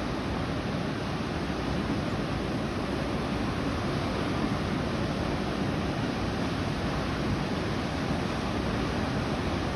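Ocean surf breaking and washing onto the beach, a steady rushing noise, with wind blowing across the microphone.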